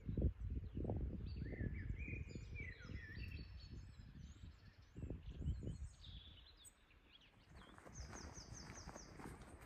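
Several songbirds singing in woodland: scattered short chirps and whistled glides, and near the end a quick series of about six high, even notes. Under them an irregular low rumble, loudest in the first half, fades and then returns.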